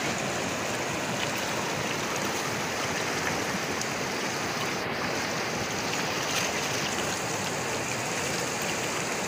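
Shallow, stony river flowing over rocks: a steady, even rush of water.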